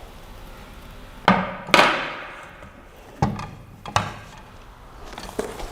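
Hard parts and packaging being handled while unboxing a 3D printer: four sharp knocks and bumps about a second apart, the second and loudest trailing off in a short scrape, then a lighter knock near the end.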